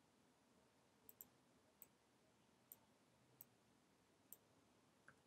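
Near silence broken by about seven faint, sharp clicks, spaced irregularly, from a computer's mouse buttons and keys.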